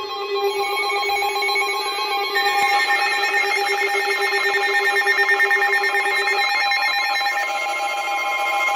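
Emergency Alert System attention tone coming from a weather radio: a loud, steady electronic alarm of several pitched tones with a fast flutter, signalling that a severe thunderstorm warning follows. The tone mix shifts about two and a half seconds in, and the lowest tone drops out about six and a half seconds in.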